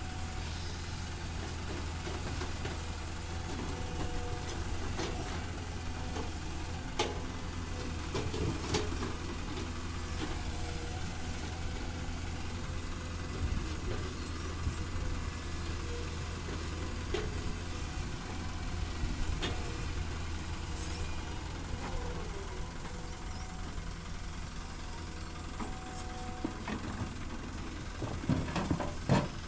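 Caterpillar hydraulic excavator working: its diesel engine runs steadily under a low hum while it digs, with scattered knocks and clacks of rock against the bucket, and a few louder knocks near the end.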